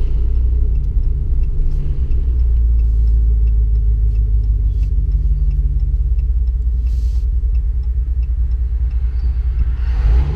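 2015 Ram 1500's 5.7-litre Hemi V8 with a muffler delete and Y-pipe, heard from inside the cab: a steady, deep exhaust drone while the truck cruises.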